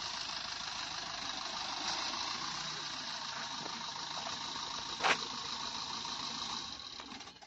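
Maruti Suzuki Swift hatchback moving slowly over a dirt ground: a steady mix of engine and tyre noise, with one short knock about five seconds in. The noise fades away near the end.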